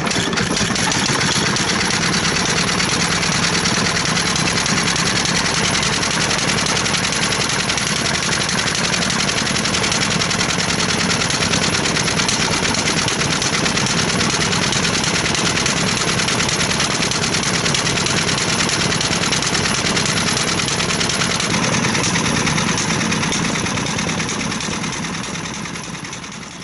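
Kyowa-type medium-speed single-cylinder hopper-cooled stationary farm engine running steadily with a rapid, even exhaust beat, fading away near the end.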